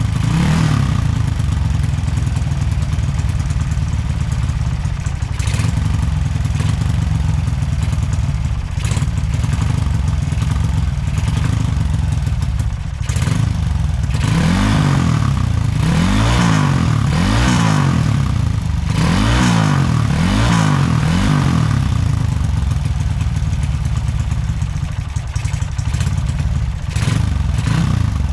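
Honda Supra X motorcycle with a single-cylinder four-stroke engine bored out to 185cc, running under test after carburettor jetting. Through the middle it revs up and down about five times in quick succession.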